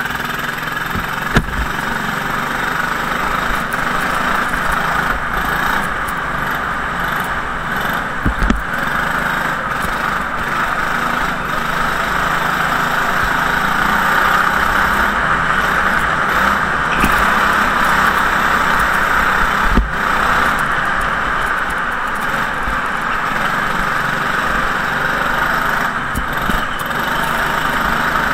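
Go-kart engine running as the kart is driven around a track, heard from onboard, with a few sharp knocks along the way.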